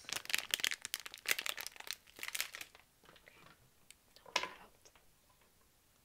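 A soft plastic packet crinkled right up against a small microphone: dense crackling for about two and a half seconds, then one more short crinkle a little after four seconds in.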